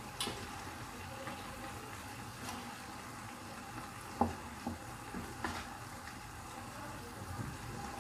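Lamb liver, onion and bell pepper sizzling and bubbling in a frying pan, with a wooden spatula stirring and a few light knocks against the pan, the sharpest about halfway through.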